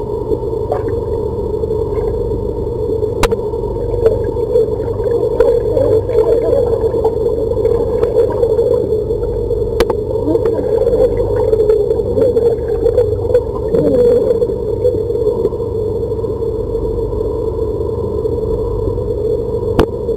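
Muffled underwater sound of a swimming pool picked up by a submerged camera: a steady hum with bubbling, garbled words spoken underwater, busiest through the middle, and a few sharp clicks.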